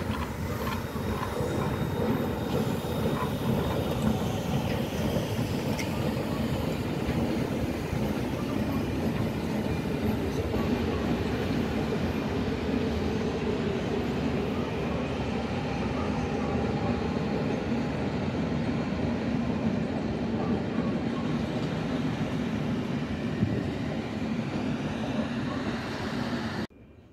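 Steam-hauled train of passenger coaches passing by: a steady rumble of wheels on the track that cuts off abruptly near the end.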